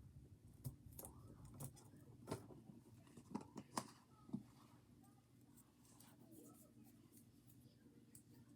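Near silence: room tone with a few faint clicks and taps in the first half, then quiet.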